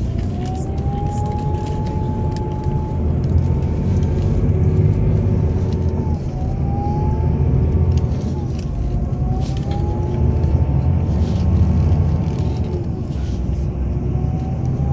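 Tour coach's engine and road noise heard from inside the cabin: a steady low drone, with a thin whine that climbs in pitch and drops back sharply three times.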